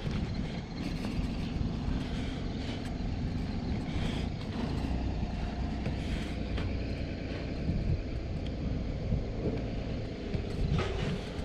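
A vehicle engine running steadily, heard over outdoor background noise.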